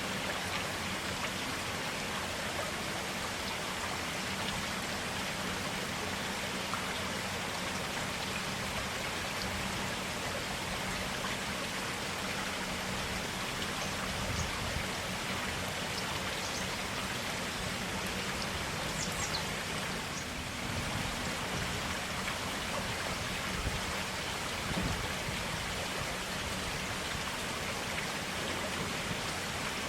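A small forest stream flowing steadily, an even rush and babble of clear water.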